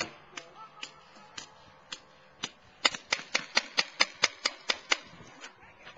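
Paintball markers firing: a few scattered shots, then a rapid string of about a dozen shots at roughly five a second, starting about three seconds in.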